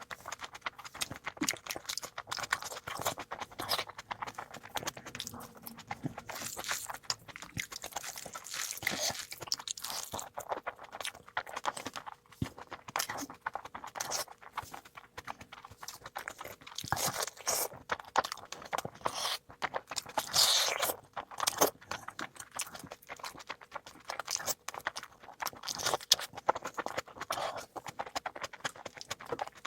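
Close-miked eating sounds: steady chewing with crunching, a dense, irregular run of small clicks and crackles from a meal of curry, rice pulao and chicken.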